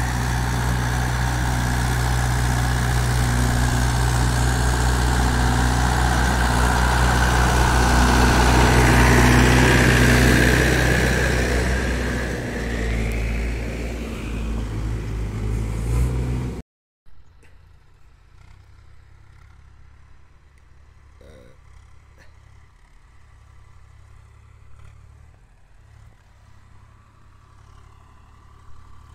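Mahindra 475 tractor's diesel engine under load, pulling a loaded trolley. It runs loud and steady, grows louder as it draws close and passes about ten seconds in, then eases off. It cuts off abruptly a little past halfway, leaving only a faint low hum.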